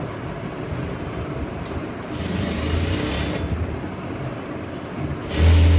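Sewing machine running in two short bursts, the first about two seconds in and a louder one near the end, stitching the second shoulder seam of a blouse.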